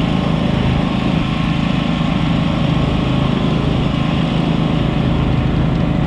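Stock garden tractor's engine running steadily under load as it drags a weighted pulling sled along a dirt track, heard from the sled behind it.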